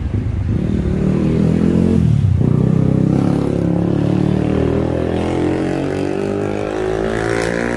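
Motorcycle engine running close by, its pitch climbing steadily over several seconds as it revs up.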